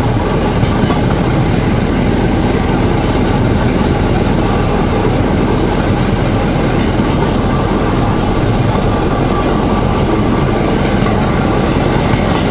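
Motor draisine travelling along narrow-gauge railway track: its engine running steadily under the noise of the wheels jolting over rough, uneven rails.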